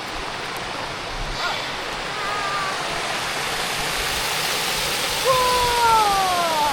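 Small waterfall and creek water rushing steadily, growing a little louder. Near the end, a high call glides down in pitch over about a second and a half.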